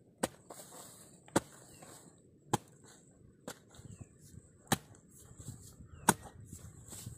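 A long-handled hoe chopping into hard, clumpy soil: six sharp strikes, about one a second, with softer scraping between them.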